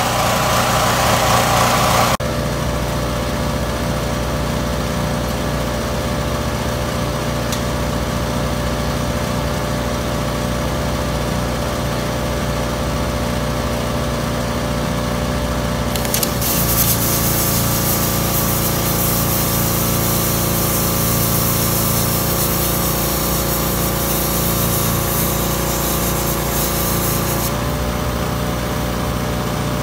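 Plasma cutter cutting steel: a hiss for about the first two seconds and again for about eleven seconds in the second half. Under it, a small motor drones steadily.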